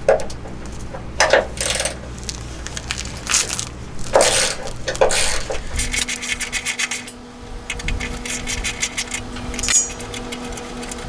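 Metal hardware and hand tools clinking and scraping, a string of separate clicks and knocks, then a fast run of clicks from about halfway with a faint steady hum under it.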